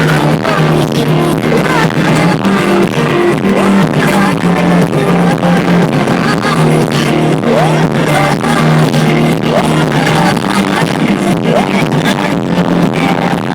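Live pop band playing over a concert sound system, with a steady drum beat and sustained low bass notes.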